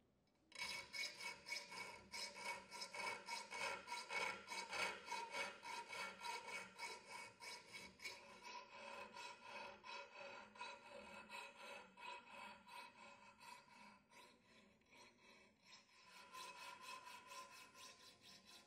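Needle file scraping back and forth along the edge of a steel bar held in a bench vise, in quick even strokes, about four a second, with a faint metallic ring under them. The strokes soften and slow in the middle and pick up again near the end.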